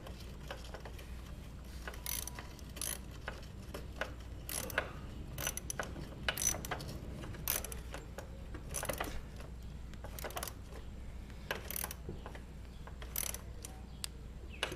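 Socket ratchet tightening the 10 mm pinch bolt that clamps the shift lever onto its shaft. It makes a string of sharp, separate clicks, roughly one or two a second.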